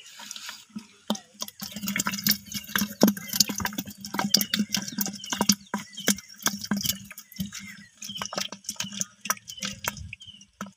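Live catfish and small silvery fish writhing in a plastic bucket with a little water. They make a dense, irregular run of wet slaps, splashes and clicks against the plastic.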